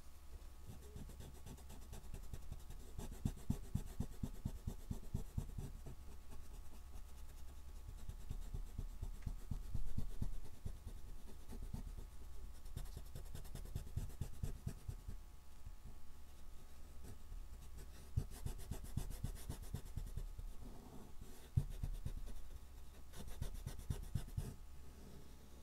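Fingertips rubbing soft oil pastel across a black-painted MDF chalk board, blending the colours with quick repeated rubbing strokes that come in spells, over a low steady hum.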